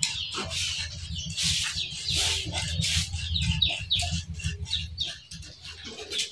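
Birds chirping over and over, a quick run of short, falling chirps, over a steady low rumble.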